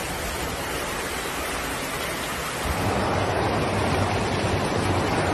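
Floodwater rushing through a street with rain falling, a steady rushing noise that becomes louder and deeper about two and a half seconds in.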